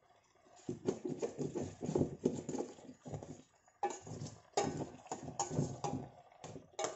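A metal spoon stirring through a coconut-milk sauce in a stainless steel pan, knocking and scraping against the pan in an irregular run of clatters that starts about a second in and pauses briefly midway.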